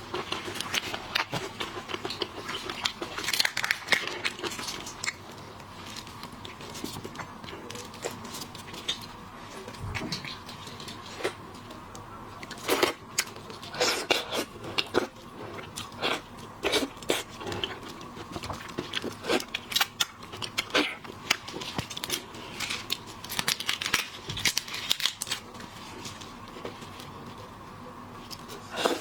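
Seafood shells being cracked and peeled by hand, with chewing: irregular crunchy clicks, crackles and tearing sounds coming in clusters.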